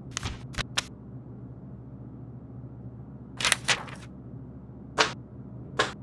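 Sheets of paper being handled and shuffled: several brief rustles and flicks, with a steady low hum underneath.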